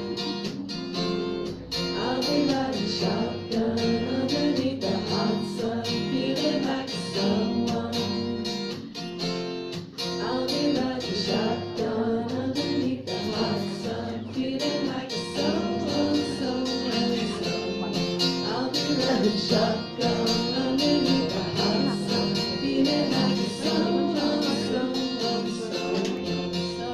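Acoustic guitar strummed steadily in a live song, with a voice singing along without clear words.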